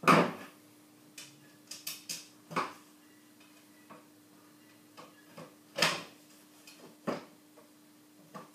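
Scattered knocks and clicks, about nine of them at uneven intervals with the loudest right at the start, from handling the aluminium-framed caravan window and tools on a workbench, over a faint steady hum.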